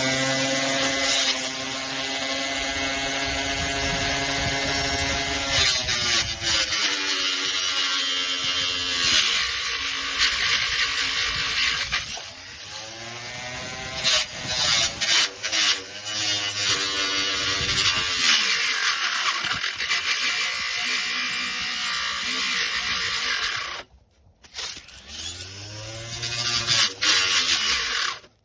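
21 V cordless weed trimmer with a blade head, its electric motor whining as it spins up and winds down again several times, over a rough hiss. The sound drops out briefly about two-thirds of the way through.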